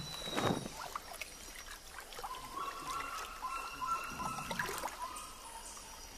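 Water trickling, with a splash about half a second in, and a steady whistled call from about two seconds in that lasts about three seconds.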